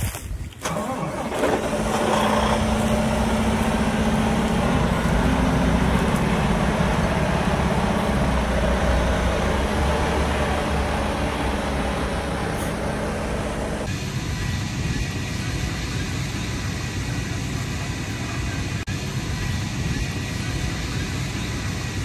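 Claas Xerion tractor's diesel engine running steadily as the tractor moves through corn stubble. The sound changes abruptly about two-thirds of the way through, to a thinner hum with a faint steady whine.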